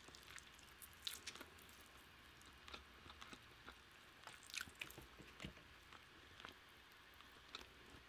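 Faint, quiet chewing of a mouthful of food, with a scattering of soft mouth clicks.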